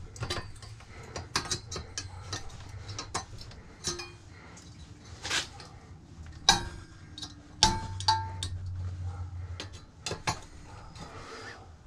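Aluminum cooling fins being worked off a microwave magnetron: irregular metal clicks and clinks, with a few sharper ringing clinks around the middle.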